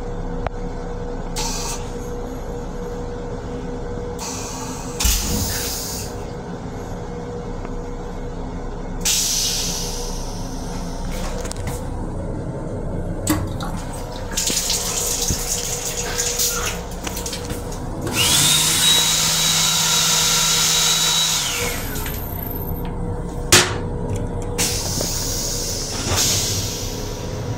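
Steady hum inside a Metro-North M7 railcar restroom, broken by several bursts from the sink's combined hand dryer and faucet. The longest burst, about three seconds in the second half, has a steady whine over a rush of air or water. Sharp clicks come a few times.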